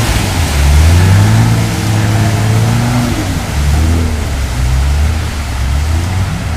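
Off-road car engine revving up and down while driving, over steady noise from wind and tyres.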